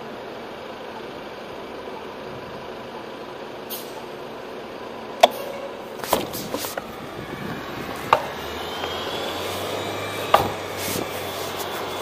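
Steady city-street traffic noise, with a low engine hum setting in about two-thirds of the way through and a faint rising whine. Several sharp knocks stand out, the loudest a little before halfway, with others about halfway, two-thirds and near the end.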